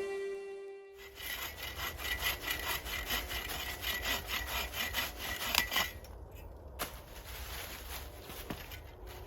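Hand saw cutting through wood in quick back-and-forth strokes for about five seconds, then stopping, leaving only faint handling sounds.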